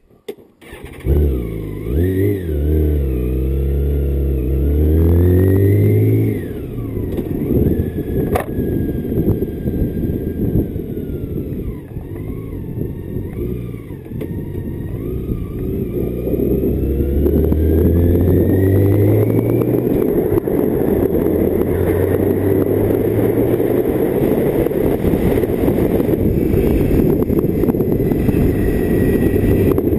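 BMW K1600GT's inline six-cylinder engine under way, rising in pitch as it accelerates in the first few seconds and again about halfway through. Wind rush on the microphone grows louder toward the end.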